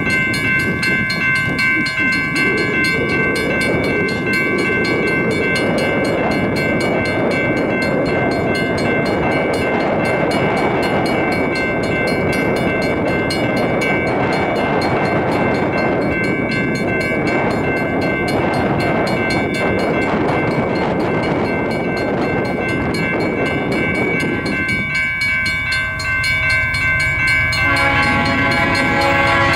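Approaching diesel freight locomotive sounding its horn: a steady multi-note chord held over the rumble of the oncoming train. Near the end a lower, fuller set of horn tones comes in as the train draws closer.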